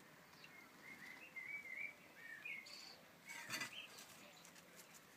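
Faint birdsong: small birds chirping in short, repeated notes, with a brief scrape about three and a half seconds in.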